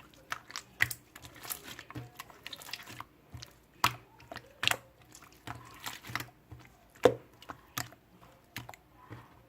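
Irregular series of clicks and soft taps, a dozen or more at uneven spacing, the loudest about four seconds in and about seven seconds in, some followed by a short rustle.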